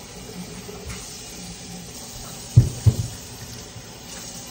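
Kitchen noise at the stove: a steady hiss, with a faint click about a second in and two sharp knocks a little past halfway, a third of a second apart.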